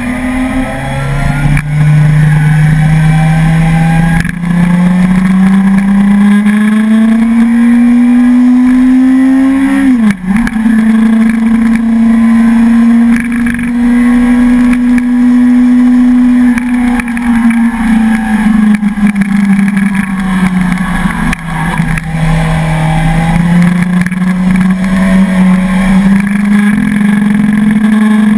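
Suzuki sport motorcycle's engine heard from onboard while riding uphill. Its revs climb steadily for about ten seconds, then drop sharply at a gear change. After that they hold steady, ease off and rise again near the end.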